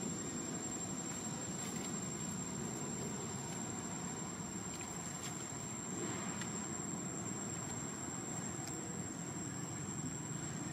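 Steady low rumble of background noise with a thin, steady high-pitched whine above it and a few faint ticks.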